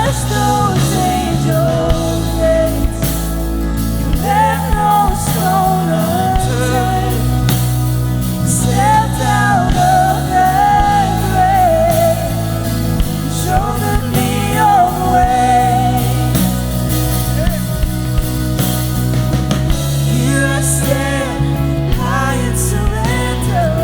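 Worship band playing a song with a lead singer's voice over bass, guitar and drums.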